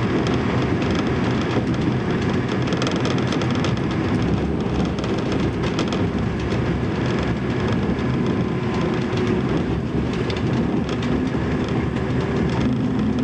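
Diesel railcar running along the track, heard from inside the driver's cab: a steady drone of engine and wheels on rail, with a few sharp clicks from the wheels.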